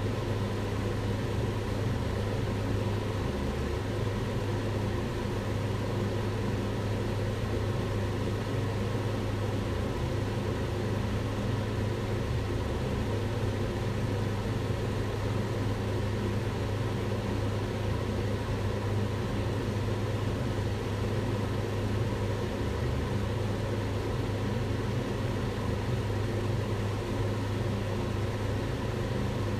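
Kitchen range hood fan running steadily: an even rush of air over a low motor hum, with no change in speed.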